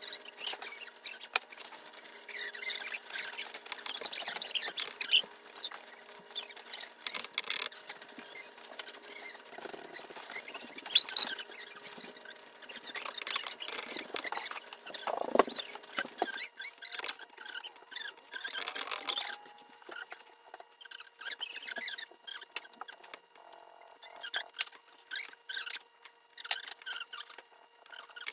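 Hot tip of a wood-burning pen dragged over cedar in short strokes, making an irregular scratchy, squeaky hiss as it burns letters into the grain. A few faint steady tones sit underneath.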